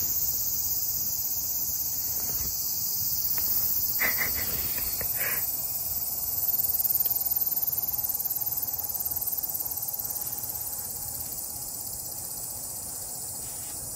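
Steady, high-pitched chorus of insects, a continuous shrill drone, with a few short faint sounds about four and five seconds in.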